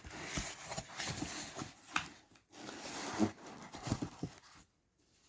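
Packaging being handled and unwrapped: crinkling, rustling paper and plastic with small clicks and knocks, in two spells of about two seconds each, stopping briefly near the end.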